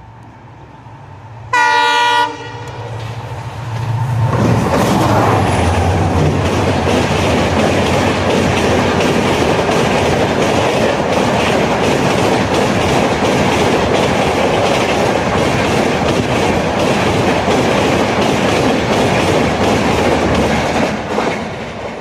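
Diesel-hauled express train giving one short horn blast, then running through the station at speed. From about four seconds in, the locomotive and a long rake of AC coaches pass with a loud, steady rush of wheels on the rails, which fades just before the end.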